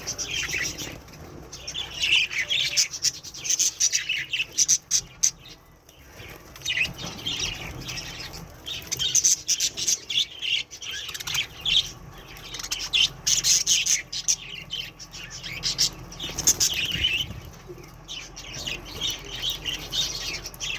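Pet budgerigars chirping and squawking in quick clusters of high notes that come and go, with bursts of wing flapping.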